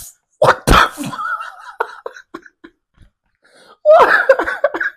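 A man laughing: two sharp, cough-like bouts of laughter near the start, a thin high wheeze, then another run of short laughs near the end.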